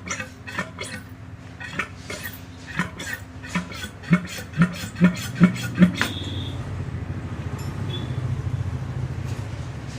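Metal clinks and taps from handling motorcycle fork parts and tools. About four seconds in comes a run of six louder, evenly spaced knocks. At around six seconds the knocking stops and a steady low rumble, like a vehicle running nearby, carries on.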